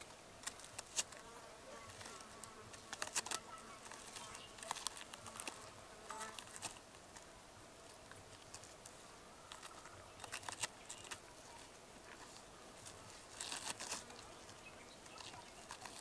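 Short-beaked echidna rooting through dry soil, twigs and leaf litter: scattered faint crackles and scratches in small clusters, with an insect buzzing faintly at times.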